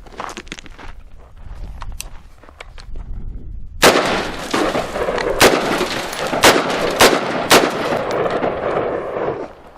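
Semi-automatic AR-15 carbine in 5.56 NATO firing about five shots, spaced half a second to a second and a half apart, over a loud, steady rushing noise that stops suddenly near the end. Light clicks and shuffling come in the first few seconds, before the shooting.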